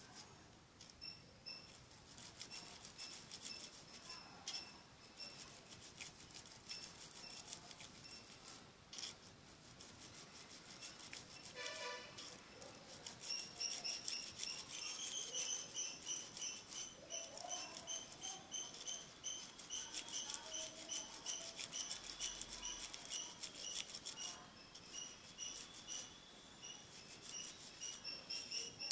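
Faint scratching of a small brush scrubbing a phone's charging port. Repeated high chirps in the background grow clearer about halfway through, at roughly two to three a second.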